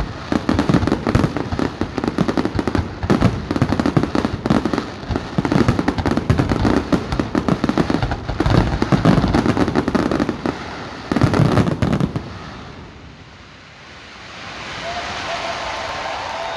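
Fireworks going off in a dense, rapid barrage of bangs and crackles that stops sharply about twelve seconds in. Near the end a crowd begins to clap and cheer.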